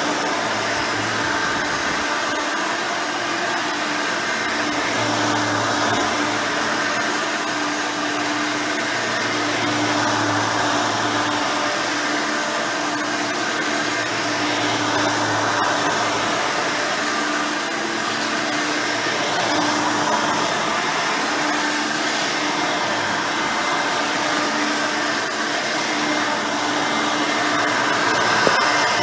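Hoover Elite 5.0 upright vacuum cleaner running steadily, its rebuilt original 5-amp motor and brush roll whirring, with a faint hum that comes and goes.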